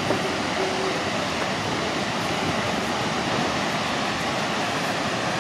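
Steady rushing roar of a large waterfall plunging down a cliff face.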